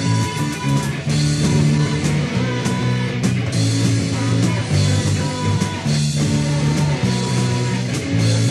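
Rock band playing: electric guitar and bass riffing over drums, with cymbal hits at a steady beat.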